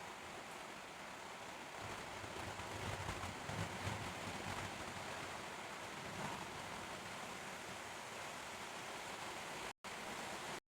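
Faint, steady hiss-like rushing noise with no distinct events, cutting out briefly to silence near the end.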